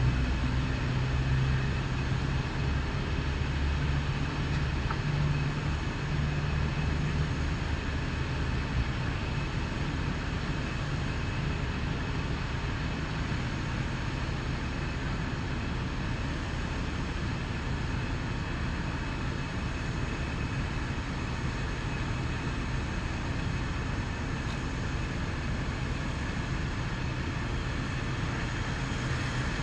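Steady low rumble of fire truck engines running, with an even hiss over it. A deeper engine hum is stronger for the first eight seconds or so, then drops back.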